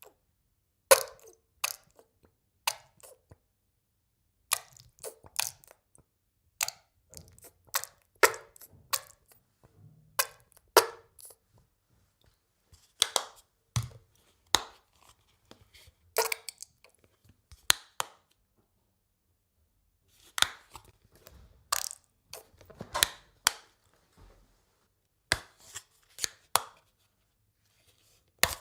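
Ketchup bottle being squeezed, the ketchup splatting out in short, sharp spurts that come in irregular clusters with brief pauses between.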